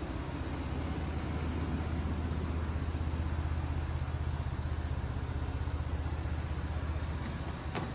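Ford Bronco Wildtrak's engine idling with a steady low drone that eases slightly near the end, with one click just before the end.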